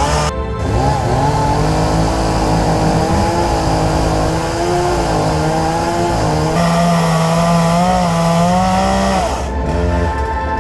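Gasoline chainsaw running hard, its pitch sagging and recovering as it cuts through wood.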